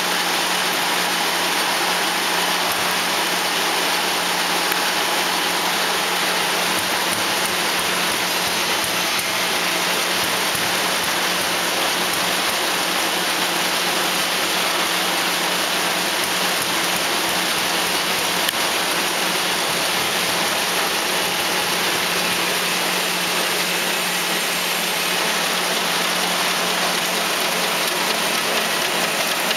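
Small sheet-fed offset press with inline numbering, perforating and collating units running: a steady, dense machine noise with a constant low hum.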